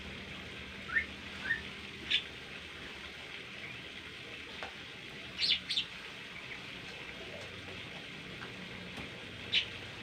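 Caged bimoli songbird, a golden whistler type, giving short sharp calls rather than a full song: two quick rising chirps about a second in, a single note just after, a quick pair midway and one more near the end. A steady hiss runs underneath.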